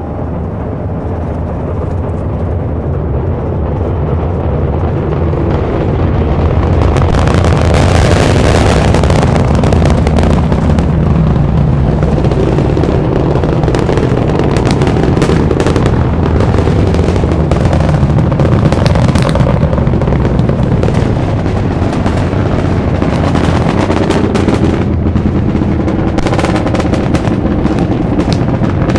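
Space Launch System rocket's two five-segment solid rocket boosters and four RS-25 engines roaring in ascent: a deep rumble that swells over the first several seconds, then holds, laced with a rapid, sharp crackle.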